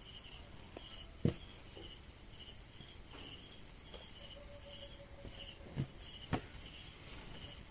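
Faint cricket chirping, short even chirps about twice a second. A few soft knocks come from hands laying and folding fabric pieces on a wooden table.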